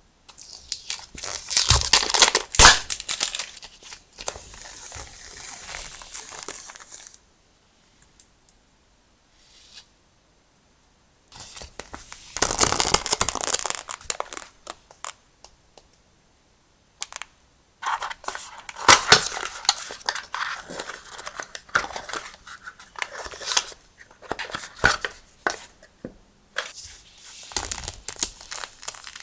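Stationery packaging being opened and handled up close: rustling and crackling with sharp tearing sounds, in four spells separated by short pauses.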